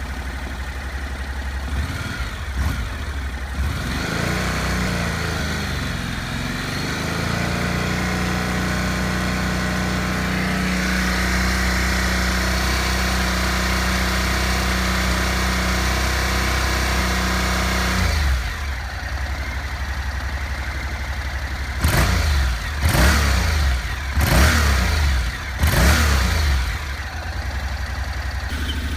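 Honda NC700X's parallel-twin engine running through its exhaust. It idles with a couple of quick blips, then climbs to a steady raised rev held for about ten seconds before dropping back to idle. Near the end it is revved sharply four times and settles back to idle.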